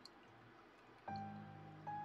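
Background music: a low, quiet bed with two struck keyboard-like notes, one about a second in and one near the end, each ringing out and fading.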